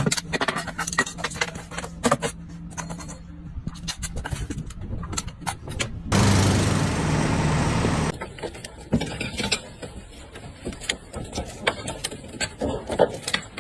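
A machine's engine running with many sharp knocks and clanks. About six seconds in, a loud hissing rush lasts about two seconds and cuts off, followed by more scattered knocking and clatter.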